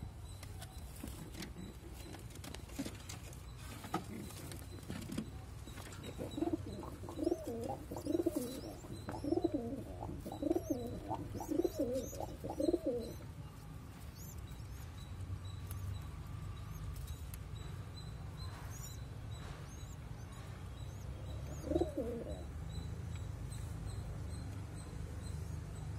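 Domestic pigeon giving low coos while feeding its squab beak-to-beak: a run of about a dozen short calls, then one more near the end.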